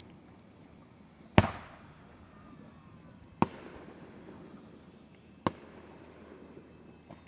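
Aerial firework shells bursting: three sharp booms about two seconds apart, the first the loudest, each trailing off in a short rumbling tail.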